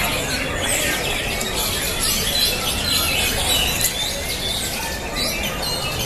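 Many caged songbirds singing at once on the contest hanging poles: a dense, continuous jumble of overlapping whistles and chirps.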